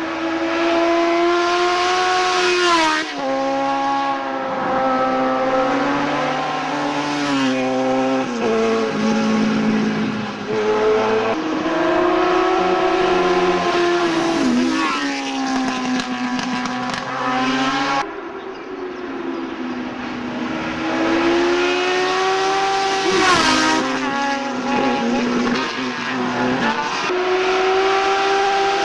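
Sport motorcycle engines revving hard at speed as the bikes ride past, the pitch climbing through each gear and dropping sharply at the shifts several times. The sound cuts abruptly about two-thirds of the way through to another run.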